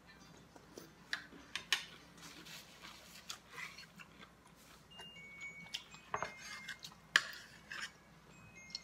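Metal knife and fork clinking and scraping on a plate as a steak is cut, in scattered sharp clicks, the loudest about a second and a half in and around six and seven seconds in, with quiet chewing between them.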